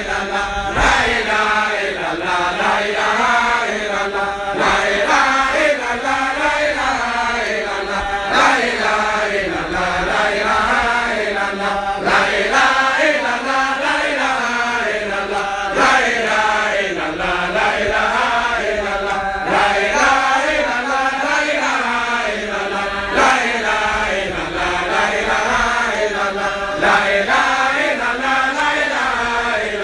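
Men's voices chanting together, one melodic refrain repeating about every four seconds, each repeat opening with a sharp accent: a religious recitation of the names of God and of the Prophet Muhammad.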